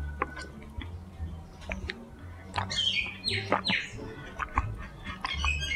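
Sipping a chocolate boba drink through a wide plastic straw: soft sucks and small clicks, with a few short high squeaky chirps about three seconds in.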